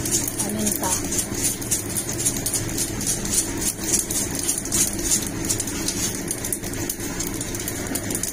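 Hand-twisted spice grinder crunching over a pan, a quick run of gritty crackles several times a second, over a steady low hum.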